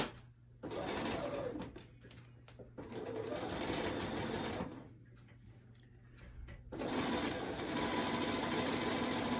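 Bernina sewing machine stitching binding on with its binder attachment, in three short runs with pauses between, the last and longest running about two and a half seconds.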